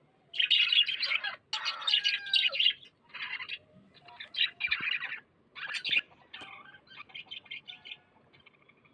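Pet lovebird chattering: rapid loud chirps and squawks in bursts, loudest in the first three seconds, then shorter bursts trailing off into softer rapid chirps near the end.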